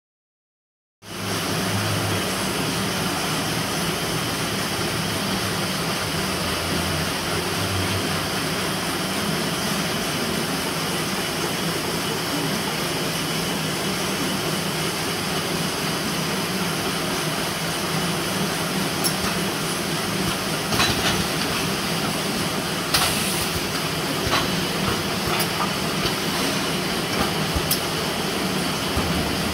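2008 Palamides Delta 502 banding delivery and its print-finishing line running: a steady mechanical din that starts about a second in, with sharp clacks now and then in the later part.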